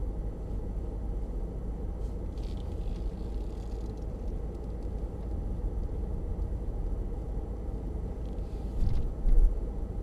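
Steady low rumble of a Mercedes-Benz SUV driving on a paved road, heard from inside the cabin, with a brief louder thump about nine seconds in.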